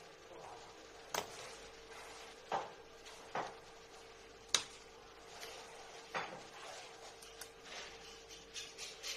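Metal tools and lightsaber hilt parts being handled on a tabletop: a handful of separate clicks and knocks as the hex key, screwdriver and metal rods are picked up, set down and worked on the hilt, the sharpest about four and a half seconds in. A faint steady hum runs underneath.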